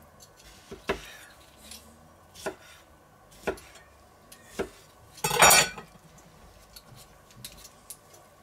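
Kitchen knife cutting pickled gherkins into chunks on a wooden cutting board: separate sharp knocks of the blade striking the board, about one a second. About five seconds in there is one louder, longer noise lasting about half a second, and fainter knocks follow it.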